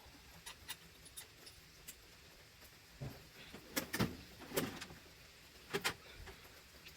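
Light metallic clicks and clinks of hand tools and Torx bits or sockets being handled, with a few louder knocks and clunks about four and six seconds in.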